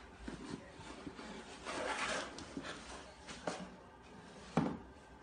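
Faint scuffing, rustling and light knocks of a cat wrestling with a cardboard product box on a hard floor, with one sharper knock near the end.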